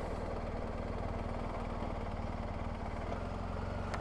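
BMW R 1250 GS Adventure's boxer twin running steadily at low revs as the motorcycle rolls slowly.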